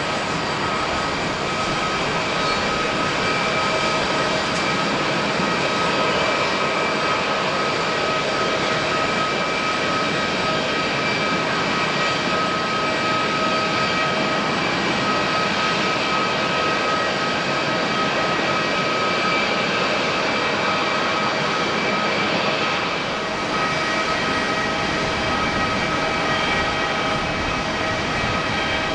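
Jet engines of a Lufthansa Boeing 747-8 (GE GEnx-2B turbofans) running steadily: a continuous roar with several high whining tones over it, dipping briefly for a moment near the end.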